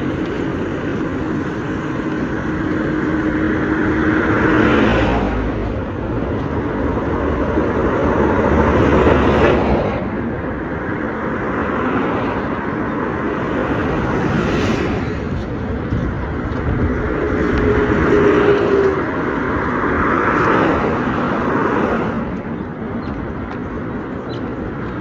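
Road traffic: motor vehicles driving past one after another, each one swelling and then fading, over a continuous bed of engine and tyre noise.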